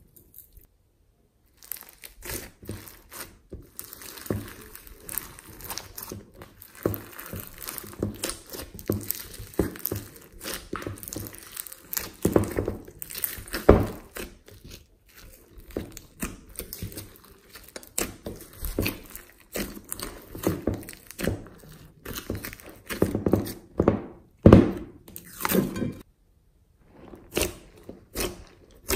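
Glossy slime with foam beads being squeezed and kneaded by hand, making irregular sticky squelches, pops and crackles. It starts after a second or so of silence and breaks off briefly near the end.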